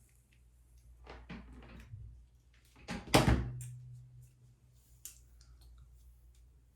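Clicks and knocks from handling hair-styling tools, with one loud thump about three seconds in.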